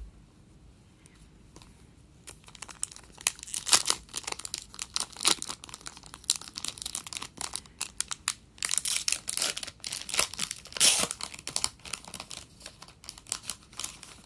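Foil wrapper of an Upper Deck hockey card pack being torn open and crinkled by hand: a run of crackling rips and crinkles starting about two seconds in, loudest about four, nine and eleven seconds in.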